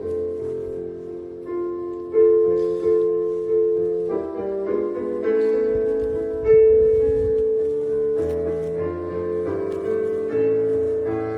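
Background piano music: a slow melody of held notes, each fading after it is struck.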